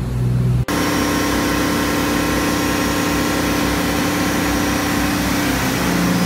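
The Hatteras 65C yacht's diesel engines running under way, heard from inside the engine room beside the turning propeller shaft: a loud, steady mechanical din with a constant hum. It cuts in suddenly under a second in, after a brief, quieter engine hum heard from on deck.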